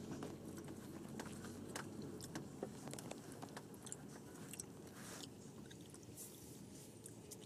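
2010 Subaru Forester driving slowly across a stubble field, heard from inside the cabin: a low steady hum with many small crackles and ticks scattered through it.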